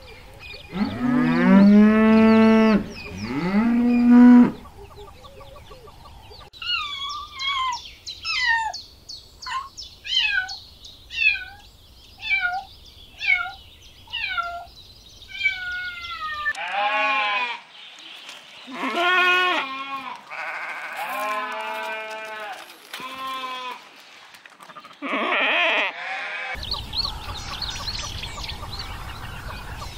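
Cows mooing, three loud calls in the first few seconds. Then a kitten mewing in a run of about ten short, high calls that fall in pitch, followed by an animal giving a string of longer, lower bleat-like calls. Steady outdoor background noise near the end.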